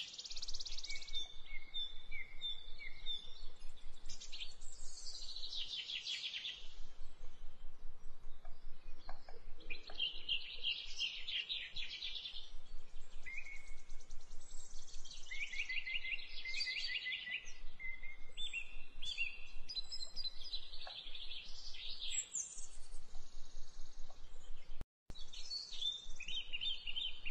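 Small birds chirping and trilling, call after call, over a faint steady hiss; the sound drops out for a moment near the end.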